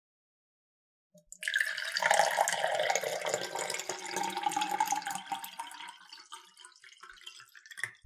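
Liquid pouring, full of small crackles, with a pitch that rises slightly as it goes; it starts with a short click a second in and dies away over several seconds.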